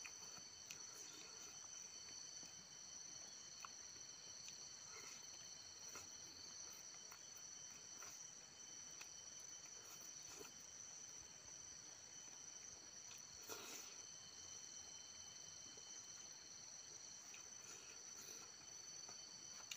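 A steady, faint, high-pitched chorus of insects, held at a few pitches, with soft clicks and smacks of chewing scattered through it; one slightly louder smack comes about two-thirds of the way in.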